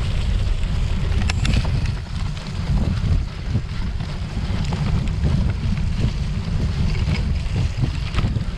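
Wind buffeting the microphone while a cyclocross bike is ridden at race speed, a heavy steady rumble, with scattered clicks and rattles from the bike over rough ground.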